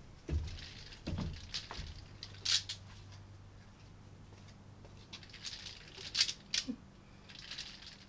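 Scattered light taps, thuds and sharp clicks as someone steps out through a hanging magnetic mesh door screen, the screen's strips rustling and clacking as they fall back together, over a faint steady low hum.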